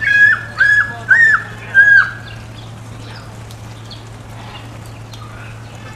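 A bird calls four times in quick succession within the first two seconds, each call short and high. A steady low hum runs underneath.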